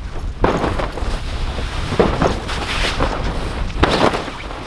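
Wind rumbling on the microphone, with irregular bursts of noise on top of it.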